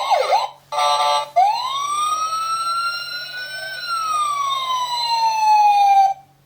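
Toy police motorcycle's electronic siren sound effect from its small speaker: two short rising whoops, a brief horn blast, then one long wail that rises and falls before cutting off suddenly.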